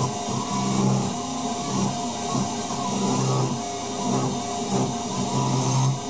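Mini milling machine, powered by a treadmill motor, running with its end mill cutting into aluminium plate; the cutting sound swells and eases every second or so as the cut goes on.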